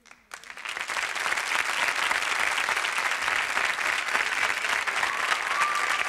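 Studio audience applauding: clapping breaks out about a third of a second in and quickly builds to a steady, dense level.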